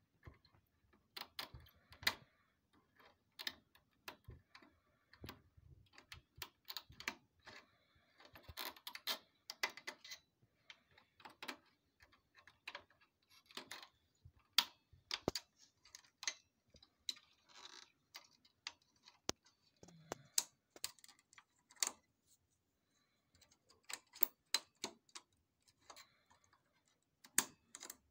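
Irregular clicks and light knocks of plastic and metal parts being worked into place by hand inside a Xerox WorkCentre 5855 copier's scanner unit.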